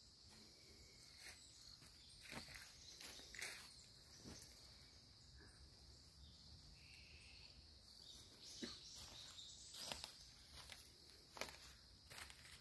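Faint footsteps crunching and rustling on dry fallen leaves, a few irregular steps, over a steady high-pitched insect chorus.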